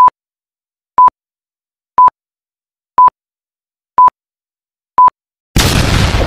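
Logo-intro sound effects: six short beeps on one steady pitch, one a second, like a countdown. About five and a half seconds in, a loud rushing burst of noise cuts in and begins to die away.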